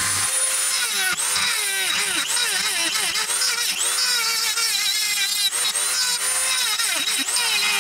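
Handheld rotary tool running at a high whine while its small bit grinds out a hole in a steel knife blank. The pitch dips and recovers over and over as the bit is pressed in and eased off.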